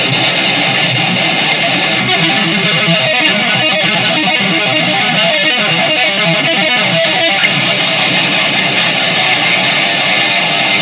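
Loud heavy metal music with distorted electric guitars, dense and unbroken.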